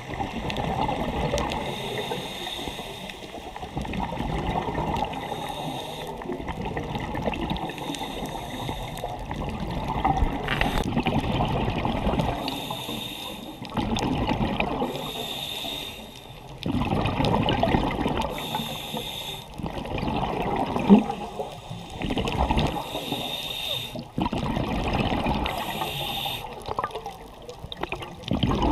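Water sloshing and gurgling, recorded underwater, swelling and easing every few seconds with short hissing bursts in between.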